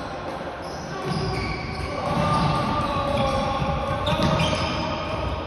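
Floorball players' shoes squeaking sharply and repeatedly on the sports hall floor, with players' voices calling out during play.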